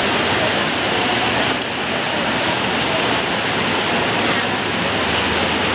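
Heavy rain pouring down, a steady loud hiss with no let-up.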